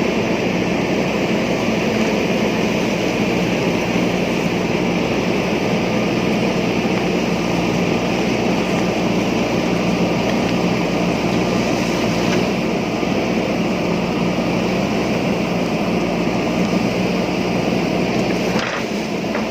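JCB backhoe loader's diesel engine running steadily as the machine works, with a brief dip in the sound near the end.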